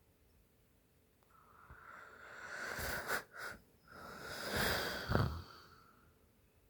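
Woman snoring in her sleep after a few drinks: two long, noisy breaths about two seconds apart, each ending in a short, low, rough burst, the second a little louder.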